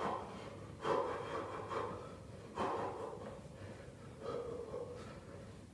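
A man breathing hard during an intense workout interval: a few sharp, noisy exhales roughly a second apart.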